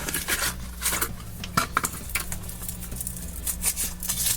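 Crinkling and crackling of the foil wrapper as it is peeled off a chocolate surprise egg: a rapid, irregular run of small clicks.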